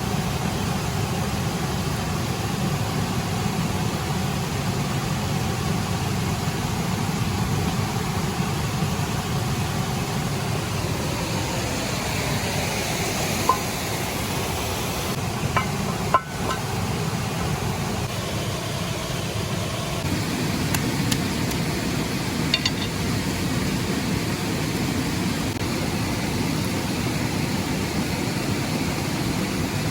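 Steady low rumbling noise with a few light knocks a little past the middle.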